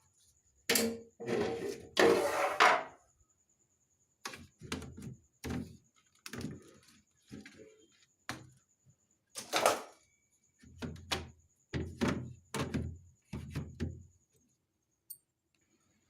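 Refrigerator trays and shelves being slid out and set down: a run of clunks, knocks and short scrapes. The loudest come in the first few seconds.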